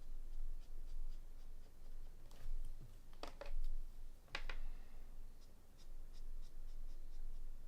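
Felt-tip markers stroking across cardstock in short scratchy strokes, blending colour onto small shapes, with a few sharper clicks about halfway through.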